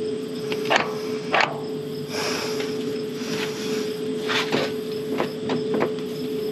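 Hand work on a truck's transfer case shift motor: several sharp metal clicks and knocks with some scraping as the motor is worked onto the transfer case to get its splines to mesh. A steady hum runs underneath.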